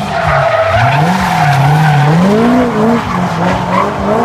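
Chevrolet Corvette C6's V8 revving up and down repeatedly as it drifts, with its rear tyres skidding and squealing on the asphalt.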